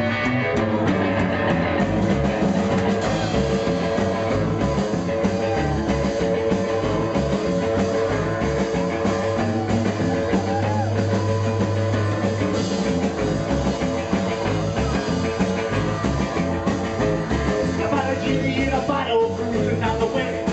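Live rock and roll band playing, driven by a plucked upright double bass with guitar.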